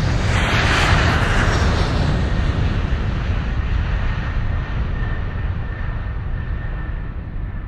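Jet airliner's turbofan engines at takeoff power heard from inside the cabin, a loud steady roar over a low rumble, as the aircraft lifts off and climbs. The rumble and roar gradually fade, and a faint steady whine comes in about five seconds in.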